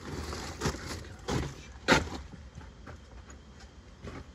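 A few short, sharp knocks and clicks, the loudest about two seconds in, over a low rumble.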